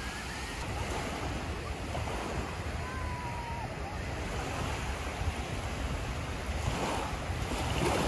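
Sea waves washing onto a sandy beach, with wind rumbling on the microphone; a wave swells in louder near the end.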